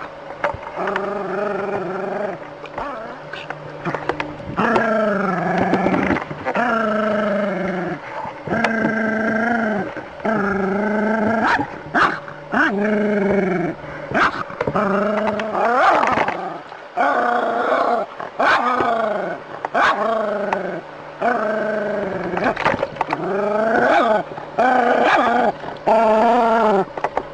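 A dog barking and growling over and over, in drawn-out pitched barks of up to about a second each with short breaks between them.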